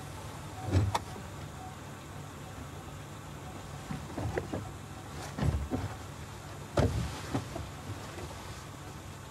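Irregular thumps, knocks and rustling of a man clambering out of a car trunk, his body and boots bumping the trunk's sheet metal, over a steady low hum. The heaviest thumps come about a second in and again around five and a half and seven seconds in.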